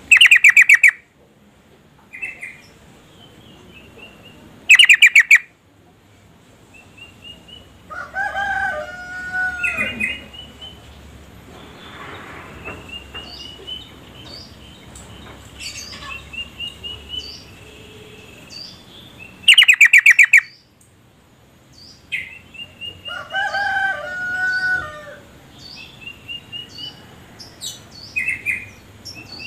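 Yellow-vented bulbul (trucuk) calls: three loud, short bursts of rapidly repeated notes, near the start, about five seconds in and about twenty seconds in, with many short rising chirps between. A lower call that bends in pitch comes twice, around eight and twenty-three seconds in.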